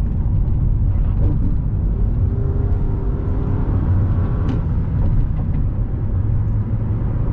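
Moving car heard from inside the cabin: a steady low rumble of road and engine noise, with a faint rising whine around the middle.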